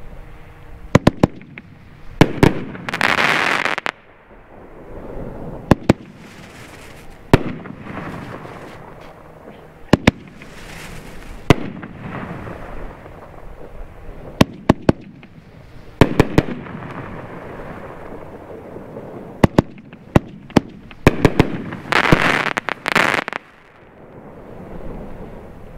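A 500 g consumer firework cake (Epic Fireworks 'Victory', 18 shots) firing shell after shell: sharp reports of mortar tubes lifting and shells breaking, some single and some in quick clusters. The loudest dense, noisy spells come about three seconds in and again about twenty-two seconds in.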